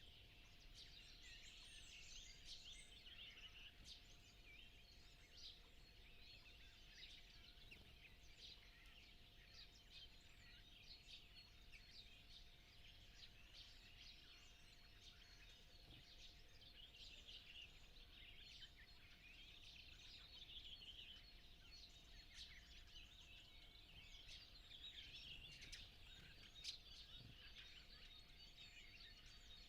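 Dawn chorus of many songbirds singing at once, a dense, continuous mix of faint chirps and trills with no single bird standing out.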